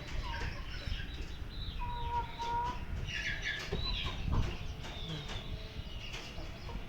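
Aseel chickens clucking and calling in short bursts, over a low steady rumble of wind.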